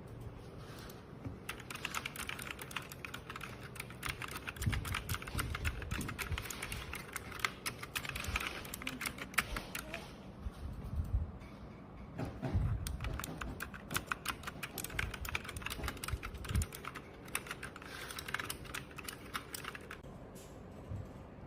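Fast typing on a 5TECH mechanical keyboard with clicky blue switches, a dense run of sharp key clicks in bursts with short pauses, stopping near the end.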